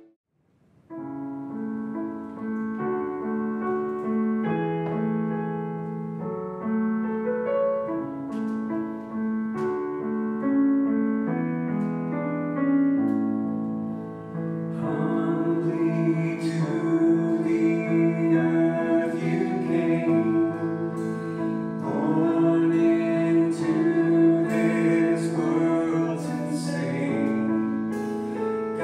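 After a brief silence, a piano plays a slow introduction of sustained chords and melody; about halfway through, singing comes in over the piano.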